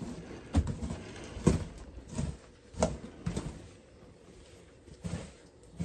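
Plastic shovel scraping and scooping loose dirt in a string of uneven strokes, the loudest about a second and a half in.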